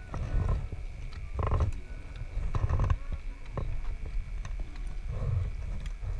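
Gusty wind rumble on an action camera's microphone over open water, with scattered short knocks and a few brief bursts of sound. A faint steady high whine runs under it.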